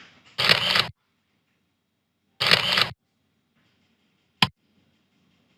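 PowerPoint's built-in 'Camera' sound effect, a camera shutter sound, played twice about two seconds apart as animations run, then PowerPoint's 'Click' sound effect once, a single sharp click, near the end.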